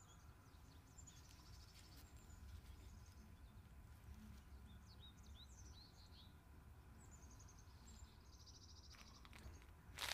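Faint birdsong from several small birds, short chirps and rapid trills repeating, over a low outdoor rumble. Near the end, a loud crackling crunch of the crisp, flaky baked bread crust.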